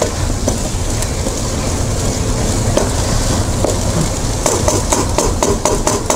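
Wooden spatula stirring and scraping chopped vegetables around a nonstick wok, over a steady low rumble. In the last second and a half there is a quick run of clacks as the spatula knocks against the pan.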